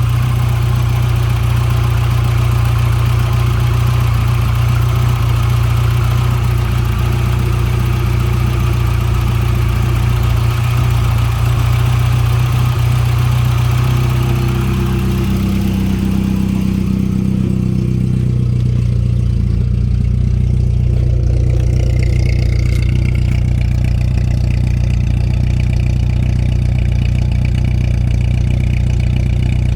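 1989 Volkswagen Jetta's 1.8-litre four-cylinder engine idling smoothly through a louder aftermarket exhaust. About halfway through, the sound changes and the upper hiss drops away.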